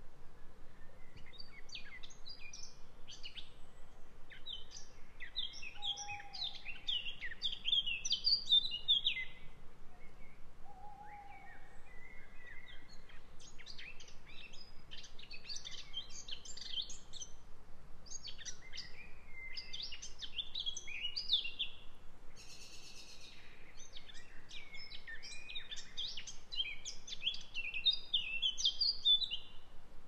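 Woodland songbirds singing in spring: several birds' quick, high warbling and chirping phrases overlap, with a brief lull about a third of the way in. A faint steady background noise lies beneath.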